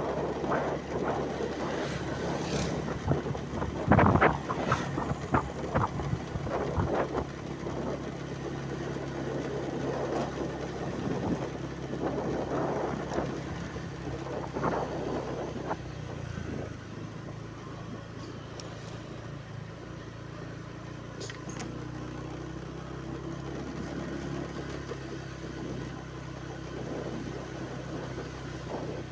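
An engine running steadily with a low hum, with irregular knocks and clattering over it during the first half that die away about halfway through.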